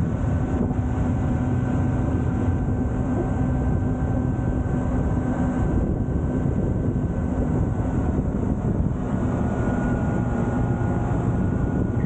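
Wind rushing over the microphone of a moving motorbike, with the engine running steadily underneath as a faint, even hum.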